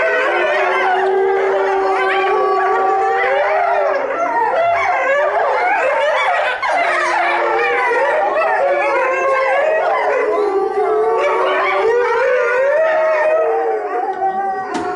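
A pack of Chinese wolves howling together in chorus, many overlapping howls at different pitches, some held long and level, others rising and falling. The chorus thins out and then stops abruptly at the very end.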